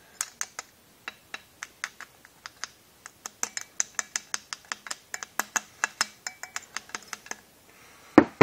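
Rapid light tapping, about five sharp taps a second, as a new steering bearing cup is tapped into a Ross steering column housing, followed by one heavy knock near the end.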